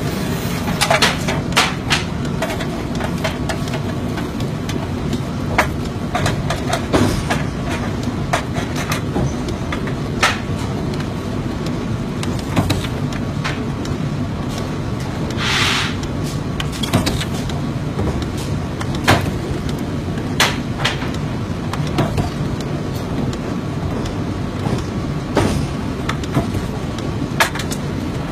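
Forging shop machinery running with a steady low drone, punctuated by irregular sharp metal clanks and knocks as hot workpieces are handled and pressed in the forging dies. A short hissing burst comes about halfway through.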